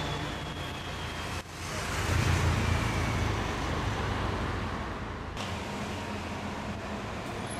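City street traffic noise: a steady rush of passing cars and buses, with a louder low rumble of a vehicle about two seconds in. The sound changes abruptly twice, at about a second and a half and about five seconds in.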